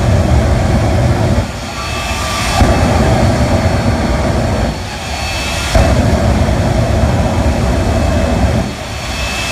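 Jet engine on a monster fire truck running loud at high power, blasting flaming exhaust. It surges and eases back in cycles of about three seconds: it dips and comes back up twice, then drops off again near the end.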